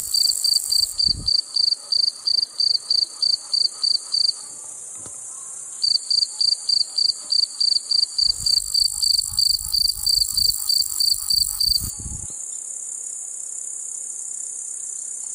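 A cricket chirping in an even pulse of about three high chirps a second. It pauses for about a second and a half some four seconds in, then stops about twelve seconds in, over a steady high hiss.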